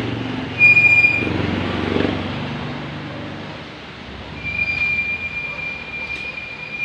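A high-pitched, steady squeal that sounds twice: briefly about half a second in, then again from about four and a half seconds in, held to the end, over a low background rumble.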